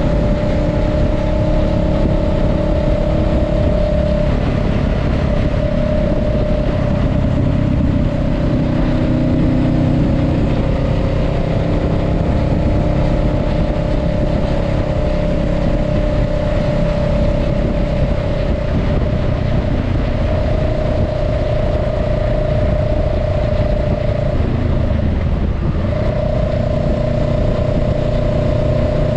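Honda Rebel 500's 471 cc parallel-twin engine running steadily under way at cruising speed, with wind and road rush. Its drone shifts slightly in pitch, drops out briefly near the end, then picks up again.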